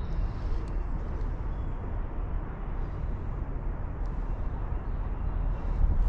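Steady low outdoor rumble with a few faint ticks, and no clear single source.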